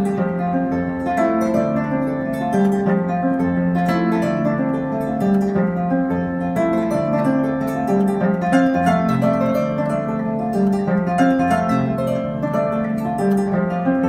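Kora, the 21-string West African harp, played solo: a continuous flow of plucked notes, with a running melody over lower bass notes.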